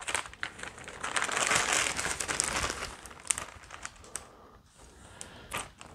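Small clear plastic parts bag crinkling as it is handled and opened, most densely in the first half, followed by a few light clicks.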